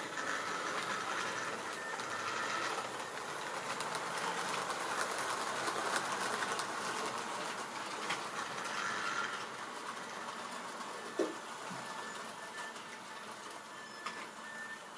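Model railway train running on the layout's track, its wheels rattling over the rails, louder for the first ten seconds and then fading. A single sharp knock comes about eleven seconds in.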